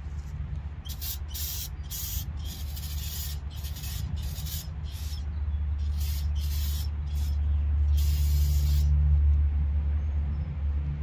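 Spray hissing in about ten short bursts over eight seconds, the last one the longest, over a steady low hum.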